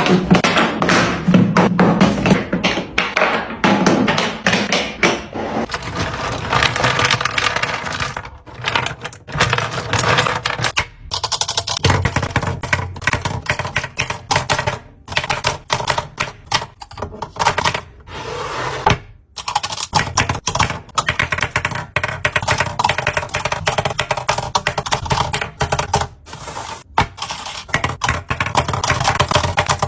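Rapid clicking and clattering of containers being handled and set into a fridge during a restock, broken by several abrupt short gaps.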